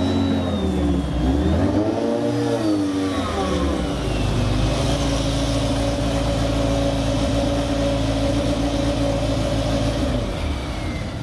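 Sports car engines: an engine revs up and down twice as the cars are driven across the stage, then the Kimera EVO37's engine runs steadily with an even note for several seconds.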